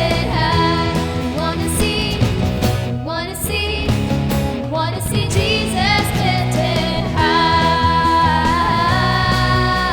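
Band music: drums, bass, electric and acoustic guitars and keyboard playing a pop-rock worship song, with a long held melody note from about seven seconds in.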